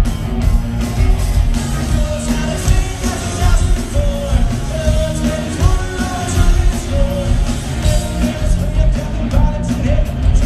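Punk rock band playing live and loud: distorted electric guitars, bass and drums, with a man singing over them from about three seconds in.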